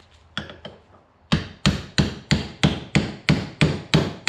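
Hammer striking a steel driveshaft yoke to drive a U-joint bearing cap into its seat: two light taps, then a steady run of about ten hard, ringing blows, roughly three a second.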